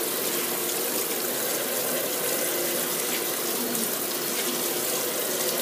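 Top-loading washing machine filling: a steady rush of water pouring into the drum of clothes.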